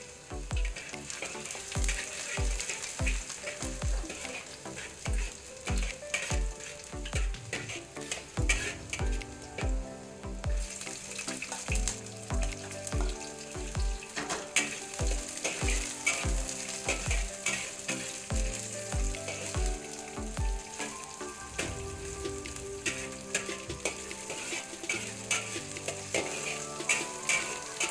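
Minced garlic and chopped onions frying in a steel wok with a steady sizzle, a metal spatula scraping and stirring them against the pan. Background music with a steady beat plays over it; the beat drops out about two-thirds of the way through.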